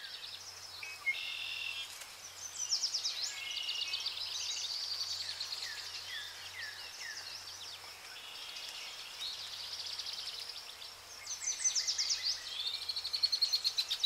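Several small songbirds singing and calling together: a busy mix of chirps, short whistles and fast trills, with bursts of rapid trilling a few seconds in and again near the end.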